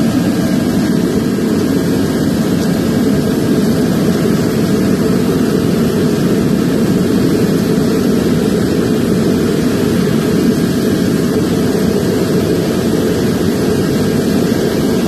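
Shop vacuum working as the air blower of a homemade forge, running steadily: a loud, even rush of air with a faint steady motor whine.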